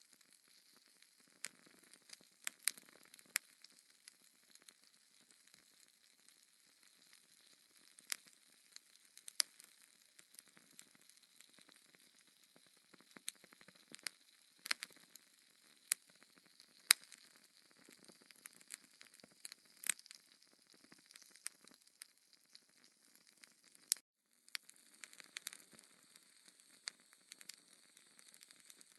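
Wood logs burning in a fireplace, crackling with sharp irregular pops over a soft hiss. The sound cuts out for a moment near the end.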